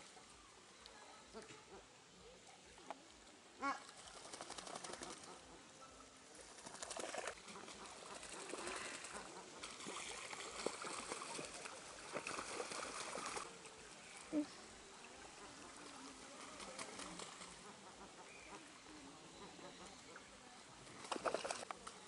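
Geese bathing in a pond, bar-headed and snow geese: bouts of splashing water and wings beating against the surface. Splashing is heaviest from about four seconds in through the middle, with a short burst again near the end.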